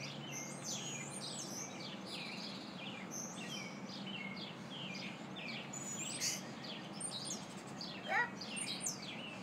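Several songbirds chirping and singing at once, short quick whistled notes overlapping, over a steady low background hum.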